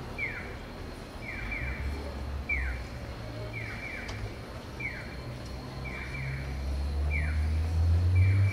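Japanese accessible pedestrian-crossing signal sounding its electronic chick-like 'piyo, piyo-piyo' chirps: each chirp falls in pitch, single and double in turn about once a second, the cue that the walk light is on. A car engine rumbles low and grows louder near the end.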